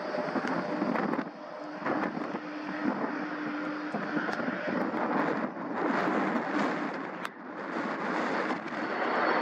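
Jet engines of a Boeing 767-200 freighter running at taxi power as it rolls past, mixed with wind buffeting the microphone. The noise dips briefly twice.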